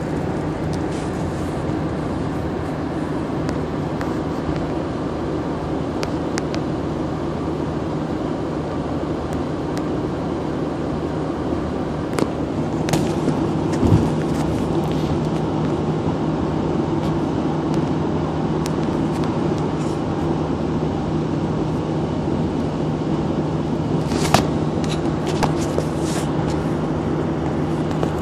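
Steady road and engine noise of a car driving on a highway, heard inside the cabin, with a constant low drone. A few short clicks come about halfway through and again near the end.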